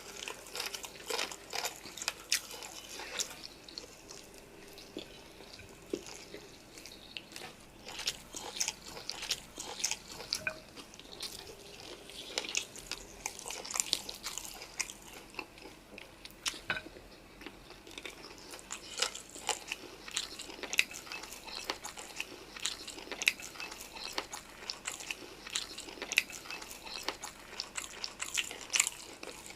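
Close-miked chewing and biting: a dense, irregular run of crunchy, clicking mouth sounds from a person eating spicy noodles and chicken.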